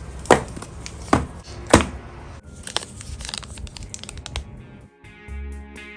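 Packaging being torn open and crinkled by hand, with three loud sharp rips in the first two seconds and then a run of small crinkling clicks. About five seconds in, background music with a guitar starts.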